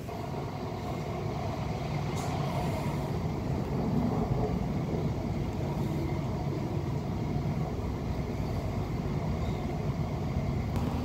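Suburban passenger train running at speed, heard from inside the carriage: a steady rumble of wheels on the rails, growing slightly louder over the first few seconds.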